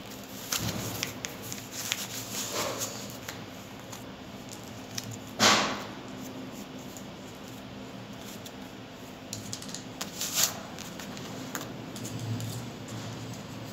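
Steady low machine hum under scattered small clicks and rustles of hands working on the equipment, with one sudden short loud noise about five and a half seconds in and a few sharper clicks around ten seconds.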